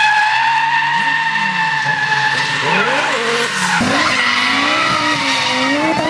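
Tyres squealing steadily while an Audi A4 quattro drifts sideways, over its 20-valve five-cylinder engine revving up and down. The sound changes abruptly about four seconds in, and the squeal and engine go on at a different pitch.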